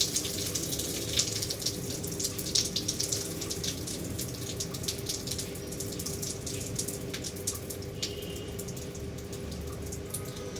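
Water spattering and dripping in irregular splashes that thin out as the flow dies away, over a faint steady hum. It is the rinse water of an air-conditioner cleaning running out.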